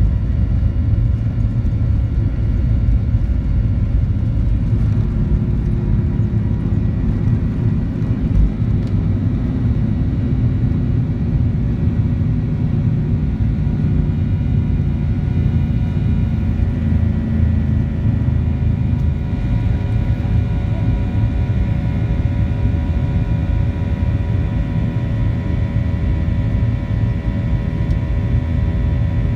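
Cabin sound of a Boeing 737-800 at takeoff power, heard from a window seat over the wing: a steady deep rumble from its CFM56-7B engines with a set of steady whining fan tones above it, as the jet finishes its takeoff roll and climbs out. A single thump stands out about eight seconds in.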